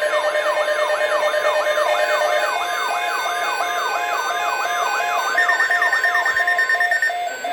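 Weather alert radio alarms sounding together, announcing a new severe weather alert. A siren-like tone sweeps down in pitch several times a second over a steady tone. From about two and a half seconds in, a beeping of about three beeps a second joins it, and a higher steady tone sounds briefly near the end.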